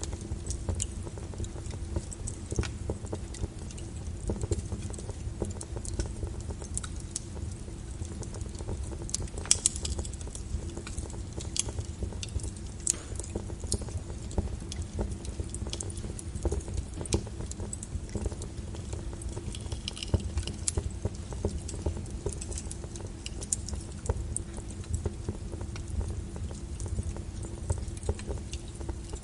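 Wood fire in a fireplace crackling: irregular sharp pops and snaps over a steady low rumble of the flames, with one louder pop about ten seconds in.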